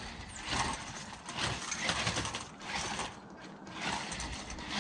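Small electric motor and gears of a 1:18-scale DEERC 9300 RC truck whirring as it drives, the sound rising and falling with the throttle.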